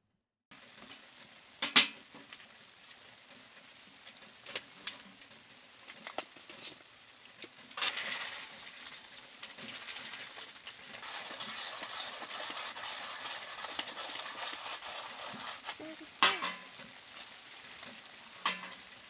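Coffee beans rattling as they are poured into a coffee grinder about eight seconds in, followed by several seconds of steady grinding that stops around sixteen seconds. Sharp clicks and knocks from handling the grinder and camp-table gear come before and after, the loudest a click about two seconds in.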